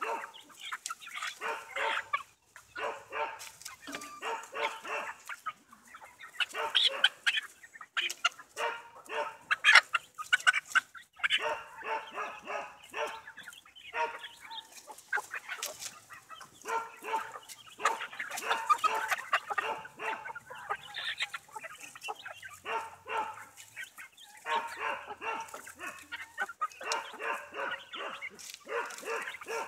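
A flock of young chickens clucking and chattering in bursts of a second or two, with short pauses between.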